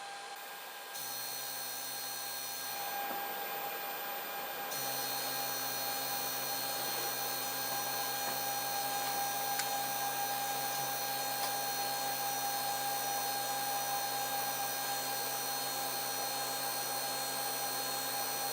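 3D printer's stepper motors driving the Z axis, a steady whine made of several held tones. It starts about a second in and steps up louder at about five seconds.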